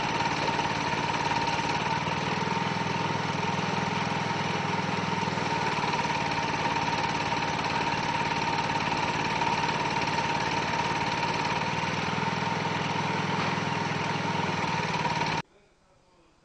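A motor or engine running steadily, with a constant high whine over a broad hum. It cuts off abruptly about fifteen seconds in, leaving near silence.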